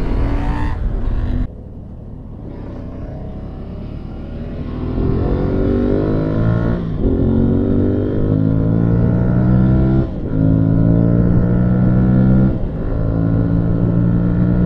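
Aprilia Tuareg 660's parallel-twin engine accelerating through the gears, rising in pitch with a short dip at each of three upshifts about three seconds apart. A loud rush of wind noise at the start cuts off suddenly after about a second and a half.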